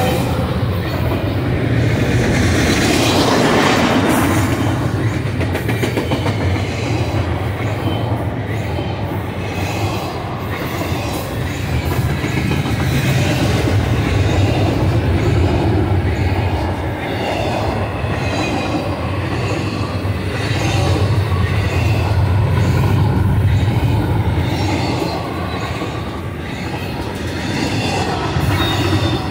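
Double-stack intermodal container train's well cars rolling past: a steady rumble of steel wheels on the rails, with clickety-clack over the rail joints and gentle swells and dips as the cars go by.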